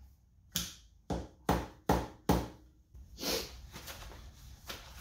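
Five sharp knocks about every half second, then a softer one and a faint one: a Showa motorcycle fork tube slid down hard onto a homemade PVC-pipe seal tool like a slide hammer, driving the dust seal into place.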